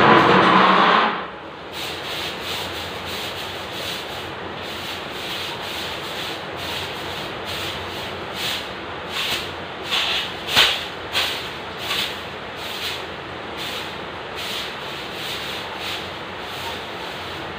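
A long-handled broom's bristles brushing and scraping over a ceiling and wall in repeated strokes, roughly one or two a second and loudest midway through. The first second holds a louder, harsher scrape.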